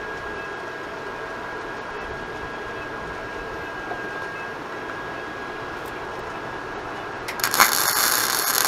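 Wire-feed welder arc crackling as a weld is laid on a steel tube kart frame; the crackle starts suddenly near the end and is the loudest sound.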